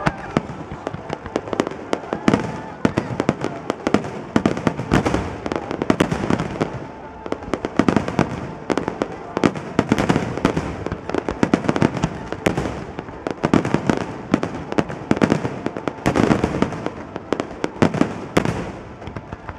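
Aerial fireworks shells bursting in a rapid, dense barrage: many sharp bangs overlapping one another, thinning out near the end.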